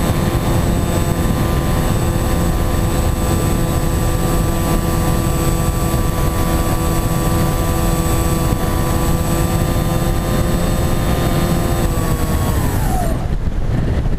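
Wing-X EPP flying-wing model in flight, its motor and propeller running at a steady pitch under heavy wind buffeting on the onboard microphone. About twelve seconds in, the motor is throttled back and its pitch falls away quickly, leaving only wind noise.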